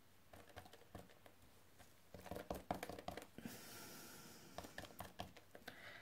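Soft, irregular tapping of a small dauber stippling glue onto die-cut card letters on a silicone craft mat, starting about two seconds in.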